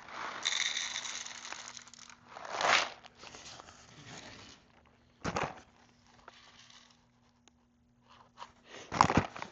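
Whole coffee beans rattling as they are poured and shaken into a small measuring cup and weighed out for the grinder. The rattling comes in bursts, with a short pause near the end and a few sharp knocks just before it ends.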